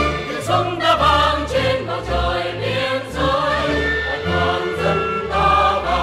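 Mixed male and female choir singing the opening lines of a Vietnamese song in Vietnamese, over instrumental accompaniment with a pulsing bass.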